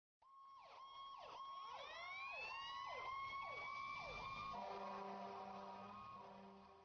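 Emergency vehicle siren sound effect: falling yelps about twice a second over a steady tone, with a wail rising and levelling off, then a steady horn-like tone from about two thirds of the way in that fades out near the end.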